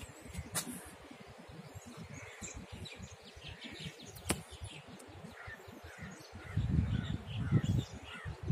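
Birds chirping in short calls over an uneven low wind rumble on the microphone that swells strongly about seven seconds in, with a few sharp clicks.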